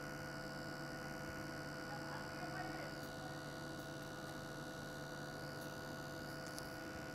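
Faint steady electrical hum with a few fixed tones over light hiss, the background noise of the recording with no speech.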